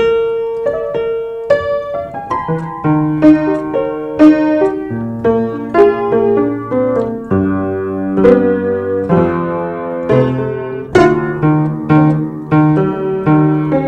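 Piano music: chords and melody notes struck at a steady pace over bass notes that change every second or two.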